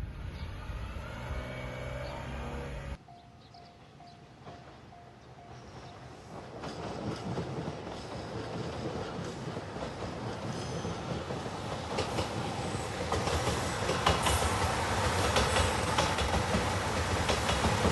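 Nanpu limited express diesel train approaching and passing over a level crossing. Its sound grows steadily louder, and a rapid clatter of wheels on the rails comes in over the last few seconds.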